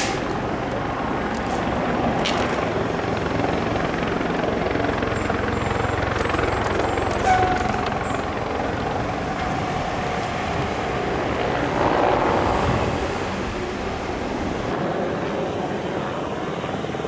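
Diesel fire truck engines running as fire apparatus drive slowly along the street, in a steady mix of engine and traffic noise, swelling briefly about twelve seconds in.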